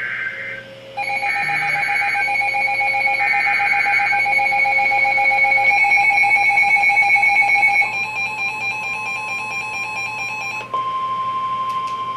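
NOAA Weather Radio alert signal ahead of a tornado warning. Short EAS (SAME) header data bursts and a steady pulsing alarm tone play first. Near the end these give way to a single steady warning alarm tone.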